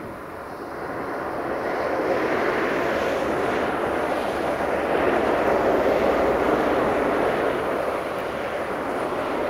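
Freight train wagons rolling past: a steady rumble of wheels on rail that swells over the first couple of seconds, then holds.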